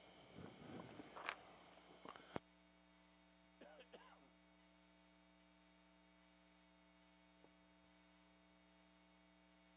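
Near silence with a steady electrical hum. Faint, indistinct voices and a single sharp click come in the first few seconds.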